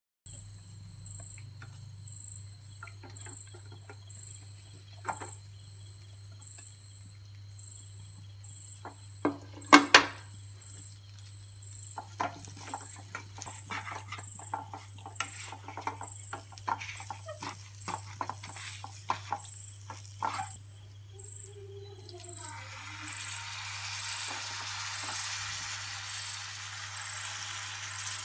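A spatula clicking and scraping against a wok while fish pieces are stirred, with the sharpest knock about ten seconds in. From about 22 seconds, liquid is poured into the hot wok and hisses steadily. A low steady hum runs underneath.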